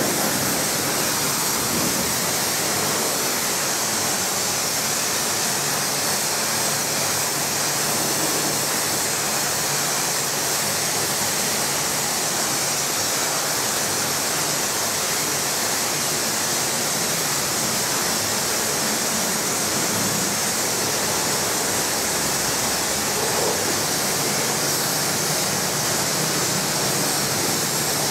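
Pressure washer wand spraying water onto a car's bodywork, a steady hiss that holds unbroken throughout.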